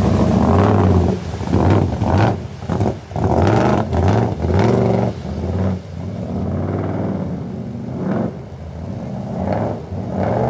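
Lifted pickup truck's engine revving in repeated surges as it churns through deep mud, then running at a lower, steadier pitch from about the middle on.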